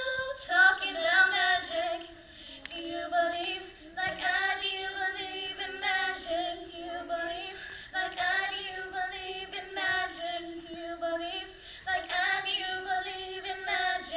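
Women singing a song unaccompanied, in phrases of about three to four seconds with short breaths between them.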